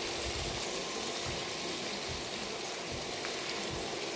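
Tofu slices with lemongrass and chili frying in shallow oil in a wok, a steady sizzle as the golden pieces finish cooking, with a faint steady hum underneath.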